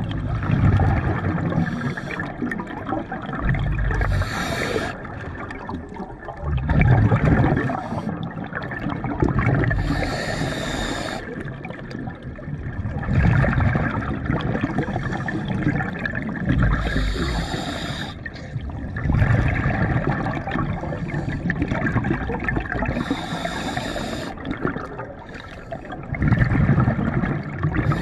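Scuba diver breathing through a regulator underwater: a short hiss on each inhale, every few seconds, alternating with a longer, louder bubbling exhale.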